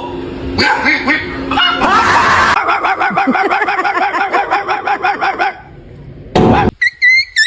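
High-pitched voice laughing in a fast run of short repeated syllables, then after a short lull a brief loud burst and, near the end, a series of high whistle-like chirps.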